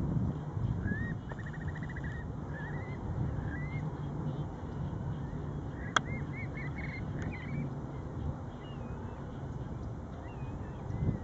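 Birds giving short whistled chirps and a quick trill, faint over a steady low rumble, with one sharp click about halfway through.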